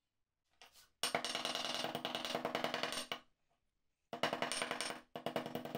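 Small hammer tapping rapidly on a steel piece laid against a flat steel bar, the metal ringing with each blow. There are three runs of quick taps: the first, starting about a second in, lasts about two seconds, and two shorter runs follow near the end.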